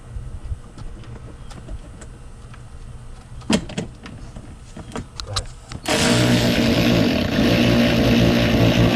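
A few light clicks and taps, then about six seconds in a cordless electric ratchet starts and runs steadily, driving a screw into the plastic wheel-well liner.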